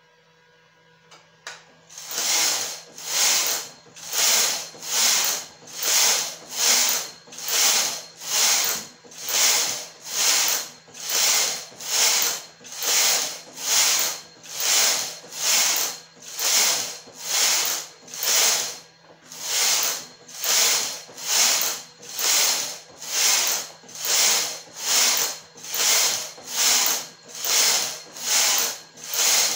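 Domestic flatbed knitting machine's carriage pushed back and forth across the needle bed, knitting row after row: a rhythmic rasping swish with each pass, about three passes every two seconds, starting about two seconds in with a brief pause around two-thirds of the way through.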